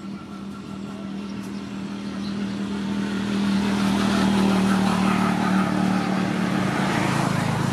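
An engine running with a steady hum, growing louder over the first few seconds and staying loud.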